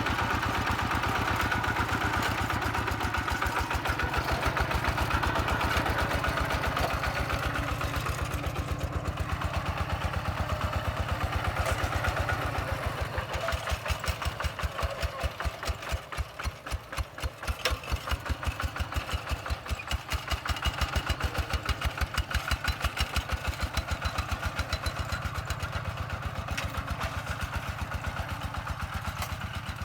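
Bulldozer's diesel engine running steadily. About halfway through it slows to an idle with distinct, evenly spaced firing pulses.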